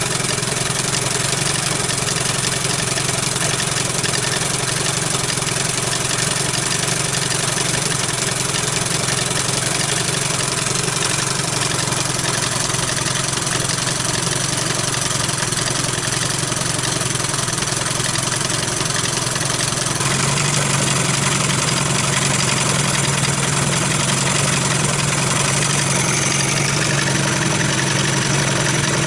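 Johnson/Evinrude two-stroke outboard motor running steadily at idle, getting a little louder about two-thirds of the way through.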